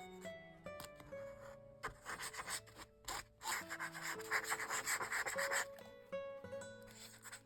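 Hand rubbing paper or card, in two stretches of a couple of seconds each, over soft background music with plucked notes.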